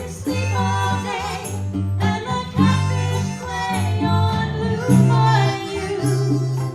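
Small live band playing an instrumental passage: a lead melody that wavers in pitch over guitar and steady low notes.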